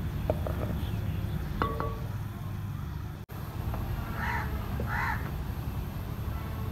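A steady low rumble, with a few clinks of a wooden spoon against a clay handi in the first two seconds, then a bird calls twice, about four and five seconds in.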